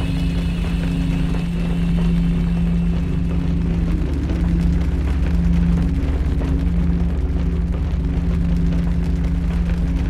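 Loud, steady low drone of several held tones under a rushing, crackling noise.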